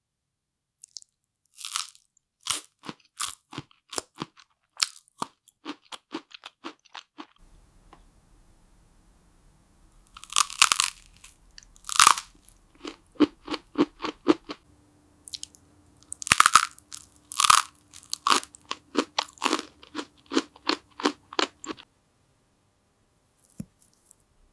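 Close-up eating sounds: a run of crisp, crunchy bites and chewing, with the loudest bites clustered about ten seconds in and again a few seconds later, then stopping shortly before the end.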